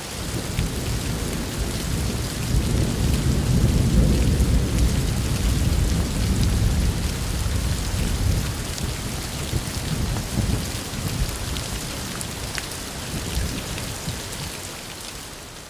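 Steady heavy rain hissing, with a long low roll of thunder that builds over the first few seconds and slowly rumbles away; the rain fades out near the end.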